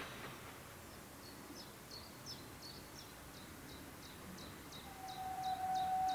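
A bird repeating a short high two-part chirp about three times a second. Near the end a steam locomotive whistle sounds one steady note for about two seconds, louder than the bird.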